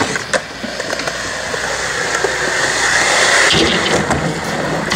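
Skateboard wheels rolling over concrete, a steady rumbling hiss that grows louder to about three and a half seconds in, then a few knocks as the board meets the ledge.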